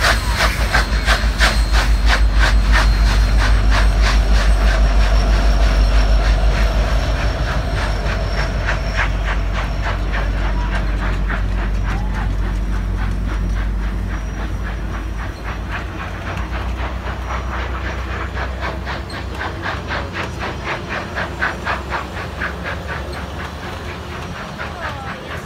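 Union Pacific 844 steam locomotive and tender rolling past close by with a heavy rumble and a fast regular beat, loudest in the first several seconds. Then the passenger cars run by with a steady clickety-clack of wheels over the rails, gradually quieter.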